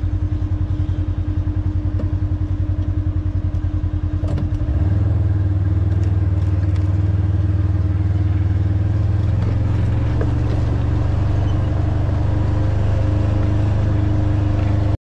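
Polaris side-by-side utility vehicle's engine running while driving, heard from inside the cab as a low pulsing drone. About five seconds in it grows louder and steadier and holds there.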